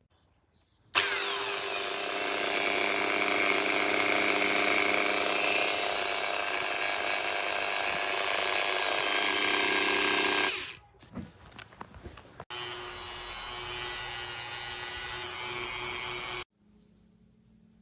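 Dremel 4000 rotary tool spinning up with a rising whine and cutting into a plastic tail light housing. It runs steadily for about ten seconds and stops, a few clicks follow, and then a second, quieter run of cutting ends abruptly.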